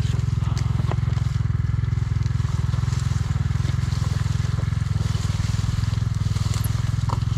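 Dirt bike engine idling with a low, steady rumble while the bike is walked by hand.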